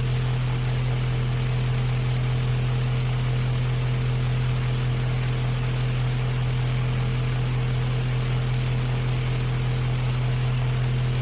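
Portable electric fan running steadily: a constant low motor hum with an even airy hiss over it.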